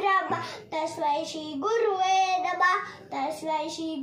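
A young boy singing a Hindi song solo, without accompaniment, in long held notes that glide between pitches, with short breaths between phrases.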